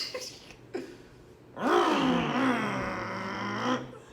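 A man's drawn-out vocal groan, about two seconds long, jumping up in pitch and then easing down and holding, after two short breathy sounds.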